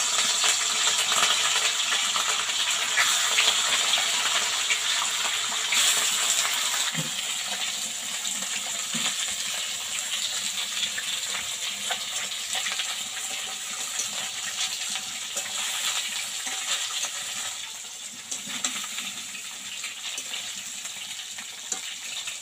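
Pieces of katla fish frying in hot oil in a wok, a steady loud sizzle that is strongest just after the fish go in and gradually eases off.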